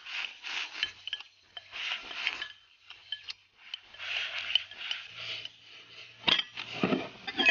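Bamboo chopsticks scraping against a clay pot in quick repeated strokes as rice is shoveled into the mouth, then a single sharp knock near the end.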